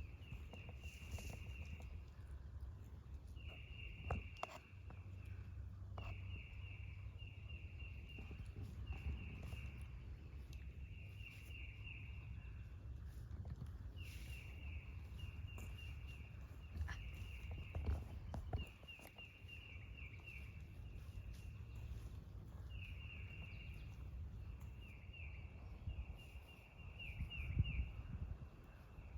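An outdoor chorus of high trilling calls, each lasting a second or two and following one another almost without a break. Footsteps and low wind rumble run underneath.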